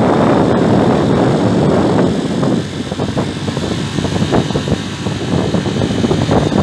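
Motorcycle engine running while riding along a road, mixed with wind rushing over the microphone, a little quieter from about two and a half seconds in.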